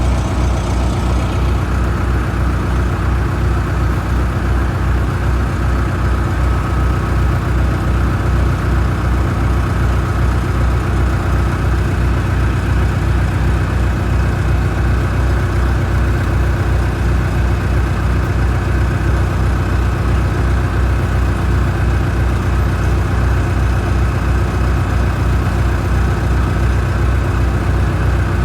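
Mobile concrete pump truck's diesel engine running steadily at idle, with a fast even pulse and a faint steady whine above it.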